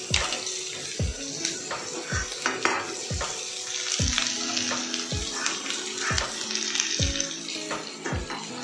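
Chopped onion, garlic and chilli sizzling in a little oil in a frying pan as they are stirred, with background music keeping a steady beat about once a second.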